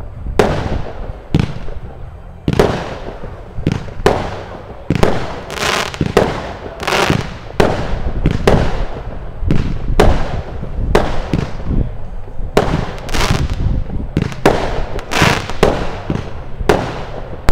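Consumer fireworks battery (cake) firing shot after shot: a steady, irregular string of loud bangs, roughly one or two a second, each trailing off in a short fading hiss.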